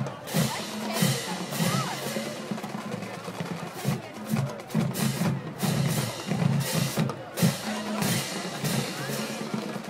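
High school marching drumline playing a rhythmic drum feature on snare and bass drums, with steady low bass-drum strokes under sharp hits that recur throughout.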